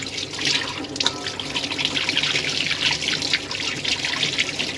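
Cold running water splashing steadily over pieces of salt-cured catfish as they are rinsed clean of salt and slime.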